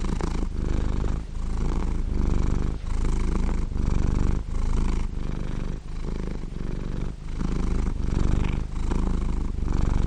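Domestic cat purring close to the microphone: a steady low rumble that swells and dips about every three quarters of a second.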